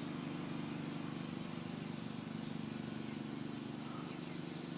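Steady low mechanical hum, like a motor running at a constant speed, holding even throughout with no change.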